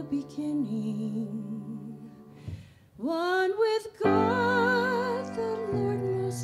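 Music: a voice singing long held notes with a wide vibrato over sustained chords. Near the middle it drops almost to silence, then a new phrase swells in and is held.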